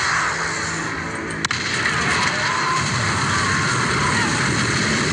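TV-drama soundtrack of an explosion scene: music over a dense, steady rumbling roar of a blast and fire, with one sharp crack about a second and a half in.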